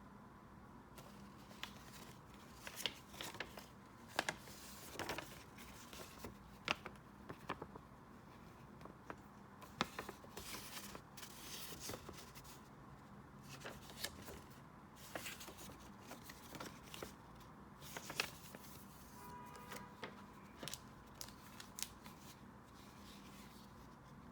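Paper and stationery being handled at a desk: scattered light clicks, rustles and small snips, like pages, stickers or scissors being worked, over a faint steady hum.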